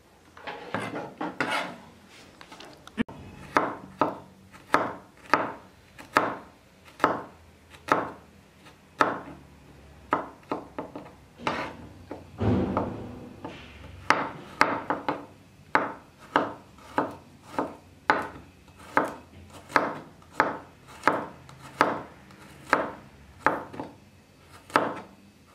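Chef's knife slicing garlic cloves on a plastic cutting board: the blade knocks on the board with each slice, about two knocks a second. About halfway through, a longer scraping sound breaks the rhythm.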